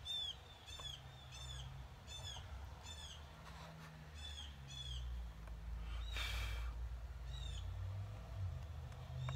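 A bird chirping over and over, short high arched chirps about one every second, over a low rumble. A brief hiss comes about six seconds in.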